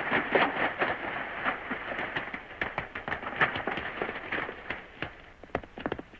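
Hoofbeats of a horse ridden fast along a dirt trail: a quick, uneven clatter of hooves that grows fainter near the end, heard on a thin-sounding 1930s film soundtrack.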